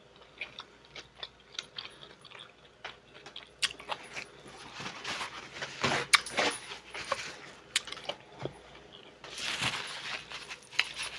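Mussel and clam shells clicking and clinking as the seafood is handled and eaten, with many scattered sharp clicks and a couple of louder, noisier stretches of handling.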